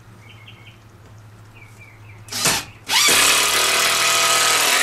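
Cordless screw gun driving deck screws to fasten aluminum angle rails onto plywood: a short burst about two seconds in, then a longer steady run from about three seconds in that stops abruptly near the end.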